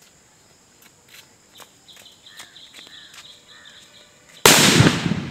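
A small round firecracker's lit fuse fizzling and crackling faintly, then about four and a half seconds in the firecracker explodes with one loud bang that fades over about a second.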